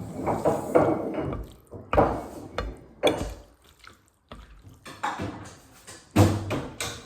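Someone slurping and eating thukpa noodle soup: a string of short wet slurps of hot broth and noodles, several in a row with a brief pause midway.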